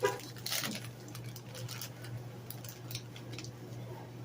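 Crackling and clicking from a salty puffed snack and its packet being handled, thickest in the first second and then sparse, over a steady low hum.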